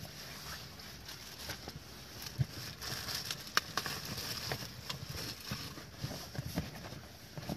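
Rustling and handling of a heavy fabric storage bag as an item is pushed into it, with scattered light clicks and knocks, the sharpest about two and a half and three and a half seconds in.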